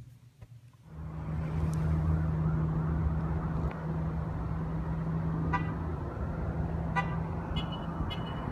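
Steady low hum of a motor vehicle running, with one held low tone over a rumble, starting about a second in. A few faint high chirps come through it in the second half.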